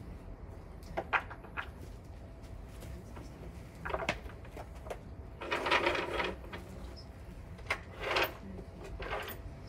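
Sash cord being pulled through the pulley wheels of a sash and case window, in several short rasping pulls, the longest about halfway through.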